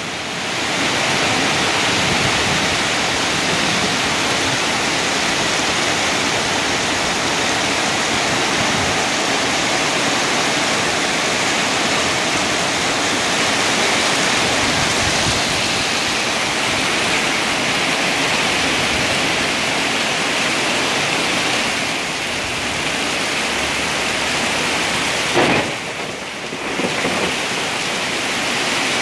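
Heavy tropical downpour, a steady hiss of rain pelting leaves, plant pots and a water-covered paved yard. It dips briefly about three-quarters of the way through.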